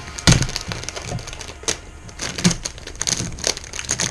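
Plastic packaging around a 5x5 speed cube being torn open and pulled off: a loud sharp crack about a third of a second in, then scattered clicks and crackling.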